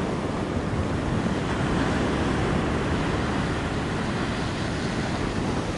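Steady rushing noise of wind and sea surf.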